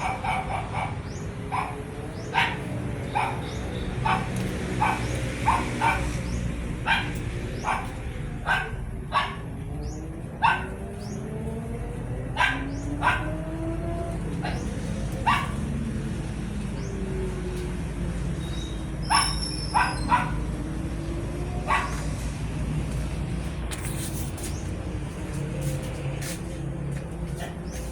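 A dog barking repeatedly at irregular intervals, over a steady low hum.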